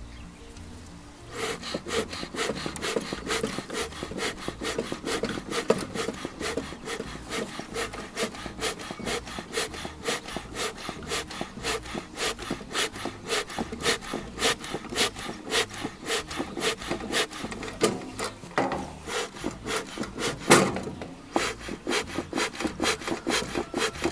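Bellows of a bee smoker pumped in quick, regular strokes to get its pine-shavings fuel burning and make smoke. The pumping starts about a second in, pauses briefly near the end with one louder stroke, then goes on.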